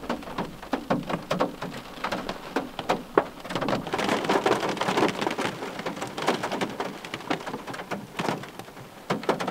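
Rain falling on a parked car, heard from inside the cabin: a steady wash of rain with many separate, irregular drops ticking on the roof and glass.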